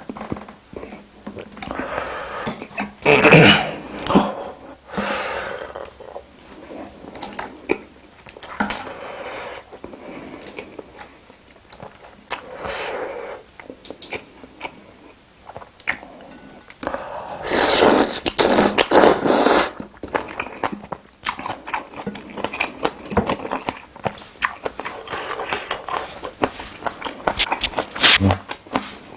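Close-miked eating sounds of spicy braised seafood being bitten and chewed: wet smacks and small clicks throughout, with a louder noisy stretch of a second or two about two-thirds of the way in.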